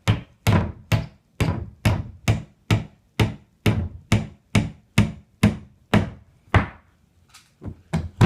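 Hammer pounding on wood in a steady rhythm, a little over two blows a second. The blows stop about six and a half seconds in, followed by a few lighter knocks.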